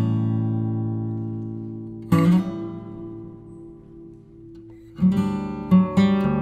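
Background music on acoustic guitar. Strummed chords ring out and fade, with a fresh chord about two seconds in and a quicker strummed rhythm starting about five seconds in.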